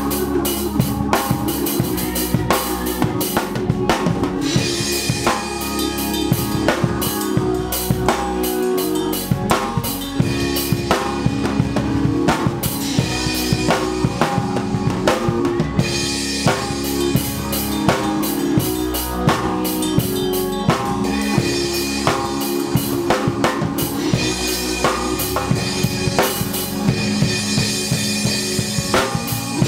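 Drum kit played in a steady groove, with snare, bass drum and cymbal hits, over sustained chords from other instruments.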